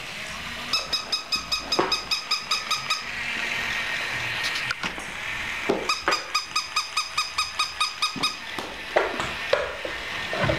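An electronic toy's rapid, regular beeping tones, about five or six a second, in two runs of a few seconds each, with a few sharp knocks in between.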